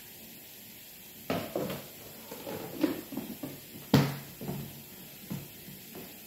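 Plastic food-storage container being handled and its lid pressed down and snapped shut: a run of knocks and clicks starting about a second in, the sharpest about four seconds in.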